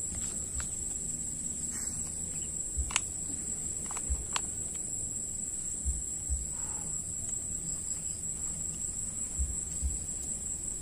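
Insects chirring in a steady, high-pitched, unbroken drone, with a few scattered short clicks and low knocks.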